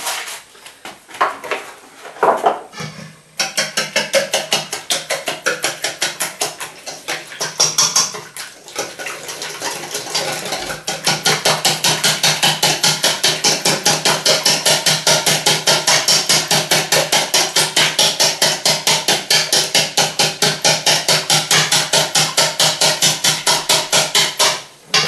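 Wire whisk beating egg and flour batter in a stainless steel bowl: a fast, even metallic clatter of about five strokes a second, with the bowl ringing under it. It starts a few seconds in, breaks off briefly twice, and stops just before the end.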